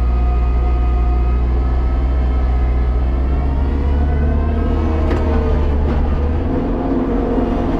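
Kubota tractor's diesel engine running steadily under load, heard from inside the cab, while its PTO-driven front snowblower throws snow. The engine note wavers about halfway through, with two faint knocks after the middle.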